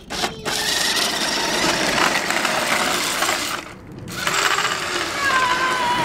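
Small electric motor and gears of a remote-control Ferrari Enzo toy car whirring as it drives on the asphalt driveway. It cuts out briefly a little under four seconds in, then starts whirring again.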